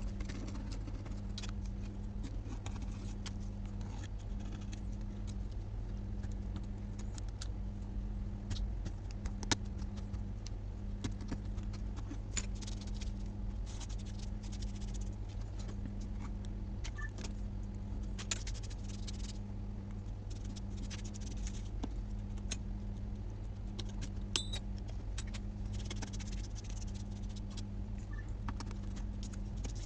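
Small metal tools clicking, tapping and scraping in irregular bursts during phone repair work, over a steady low electrical hum with a faint tone that pulses about once a second.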